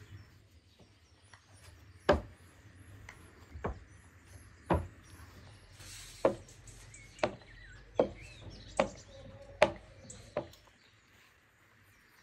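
A series of about nine sharp knocks and taps from pastry-making on a wooden table, irregularly spaced. Small birds chirp faintly in quick runs behind them.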